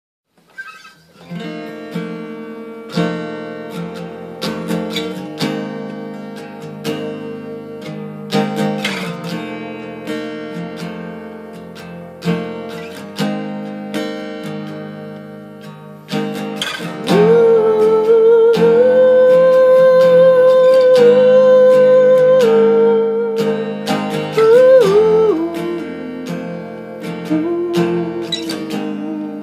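Acoustic guitar playing a slow picked intro, single notes and chords ringing out. About halfway through, a voice holds one long wordless note, the loudest sound here, then slides down. A shorter, lower held note follows near the end.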